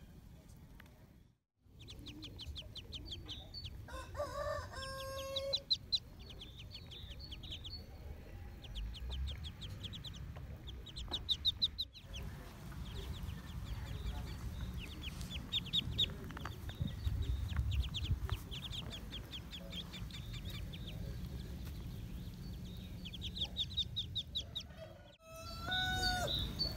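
Ducklings peeping in quick runs of high cheeps, with a few louder calls from other farmyard fowl about four seconds in and again near the end, over a low rumble.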